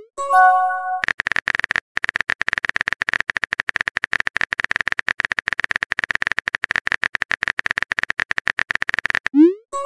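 Chat-app sound effects: a short multi-note chime as a message pops in, then a fast, even stream of keyboard-typing clicks for about eight seconds, with a short break near the start. Near the end there is a quick rising swoosh as the next message is sent.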